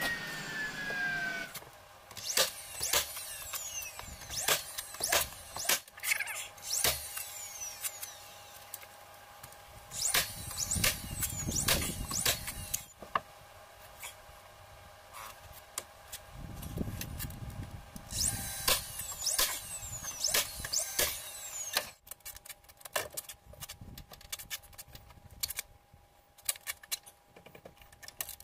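Cordless drill driving screws into pine boards in several short runs, among sharp knocks and clatter of boards being handled and fitted.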